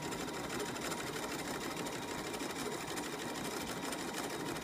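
Bernina sewing machine running steadily at an even speed, stitching fabric fed through a narrow rolled hem foot.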